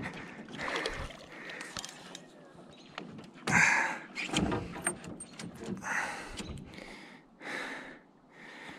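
Heavy breathing in short bursts, about one a second, from an angler straining to land a hooked salmon. Under it are light clicks and knocks from the spinning reel and the small boat.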